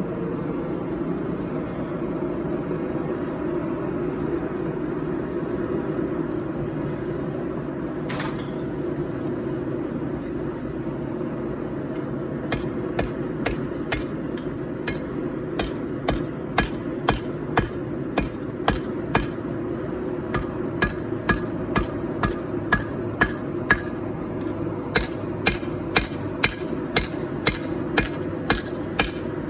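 Hand hammer striking 4140 carbon steel on an anvil while forging a knife blade: one lone blow about eight seconds in, then steady strikes about two a second from about twelve seconds in, with short pauses, some with a ringing tone. A steady low rumble underneath.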